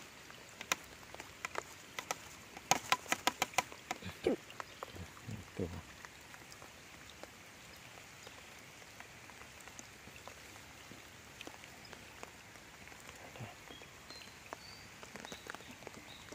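Rain falling steadily, with single drops ticking close to the microphone and a quick run of sharp clicks about three seconds in.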